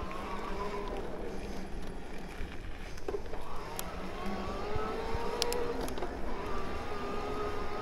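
Electric mountain bike's motor whining under pedalling, its pitch gliding up and down with speed, over a low rumble. A few faint sharp clicks about halfway through.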